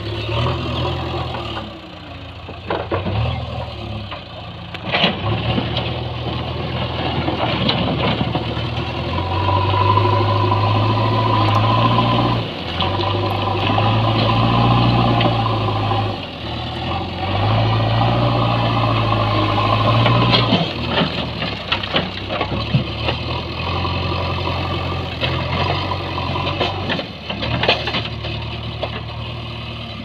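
JCB backhoe loader's diesel engine running and revving in several long surges as the front bucket pushes and scoops rocky rubble, with stones clattering against the steel bucket.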